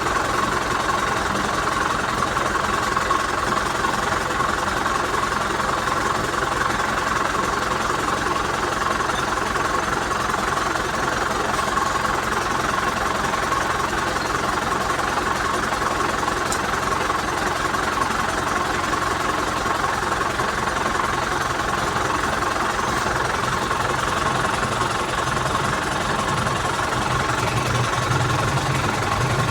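Car engine running steadily at an even speed, with a fast, regular low pulse throughout.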